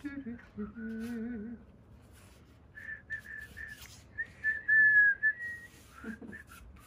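A person hums a few notes, then whistles a little jingle: four short notes followed by one longer, wavering note.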